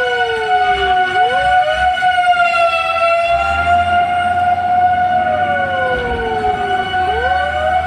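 Fire engine sirens sounding together: one holds a steady high tone while another slides slowly down in pitch and snaps quickly back up, twice.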